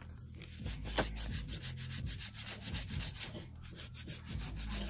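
A hand nail file filing the free edge of an artificial nail tip in quick, repeated back-and-forth strokes, with a rough rubbing sound.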